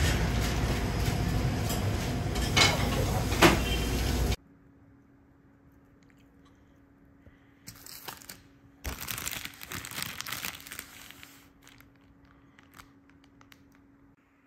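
Loud, dense street noise that cuts off abruptly about four seconds in. After a short pause, a thin plastic food bag holding an egg crepe crinkles and rustles in several bursts over about four seconds as it is opened and handled.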